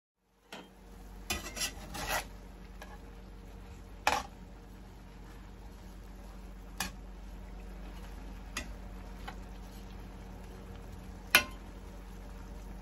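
Stir fry of bear heart, bell pepper and green onion sizzling in a skillet while a fork stirs it, with sharp clinks and scrapes of the fork against the pan every few seconds, the loudest near the end.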